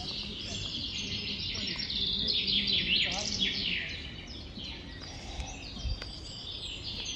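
Small birds chirping and singing: a busy run of quick, high notes that slide downward, thickest about two to three seconds in.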